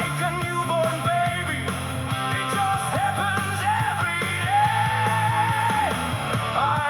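Background rock song with a sung vocal over guitar and a steady bass line.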